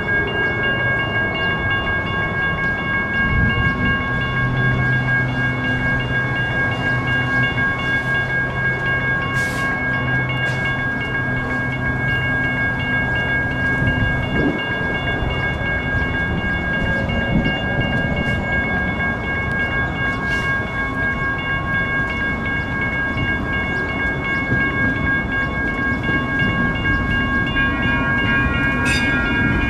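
Railroad crossing bells ringing steadily throughout, the crossing held activated while the light rail trains turn around, with the rumble and low hum of a light rail train running. A second set of bell tones joins in near the end.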